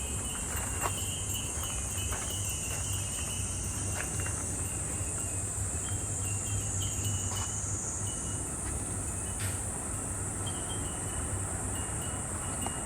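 Summer cicadas droning steadily, with short high ringing tones that come and go, typical of fūrin wind chimes stirring in the breeze, over a low steady rumble.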